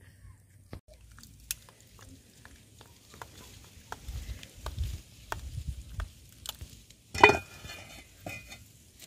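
A metal spoon stirring and scraping in a small enamel mug, with light scattered clinks. About seven seconds in comes one much louder metallic clank that rings briefly.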